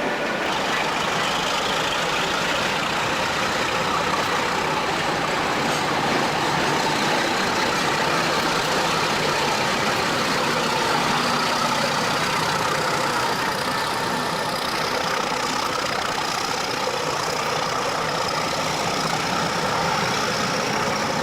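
British Rail diesel locomotive engine running steadily, an even, unchanging hum.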